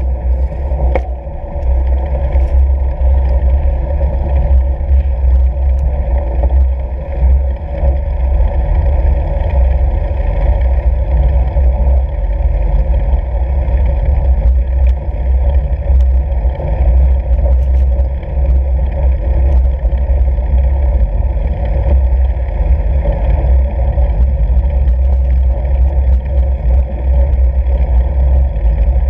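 Fat bike rolling steadily over snow-packed lake ice, with a constant low rumble of wind on the bike-mounted camera's microphone and the odd faint rattle.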